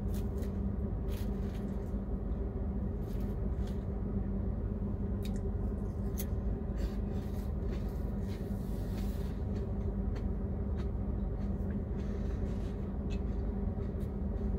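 A man eating salad: light clicks and scrapes of a plastic fork in a plastic clamshell container, with chewing, over a steady low hum in a truck cab.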